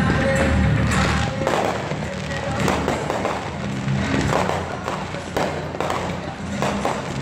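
Fireworks going off: a run of sharp bangs and crackling pops about once a second, from gold crackling comets. Music plays steadily underneath.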